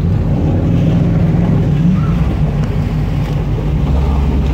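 Jeep Grand Cherokee engine running at low speed while driving through a muddy, water-filled trail: a steady low drone that shifts in pitch about two seconds in and again near the end.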